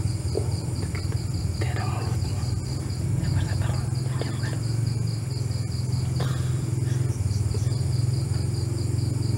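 Crickets chirping in a fast, even pulse, over a steady low hum.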